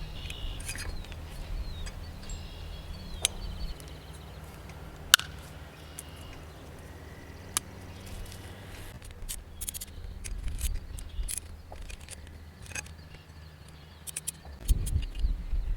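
Scattered sharp clicks and light metallic clinks from the pulley clothesline's hardware being handled, coming thicker in the second half, over a low steady hum. A bird chirps briefly at the start.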